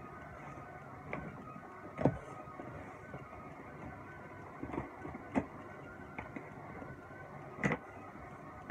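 Cardboard shipping box handled and turned over on a wooden table: a handful of short knocks and taps, the loudest about two seconds in and another near the end, over a steady background hum.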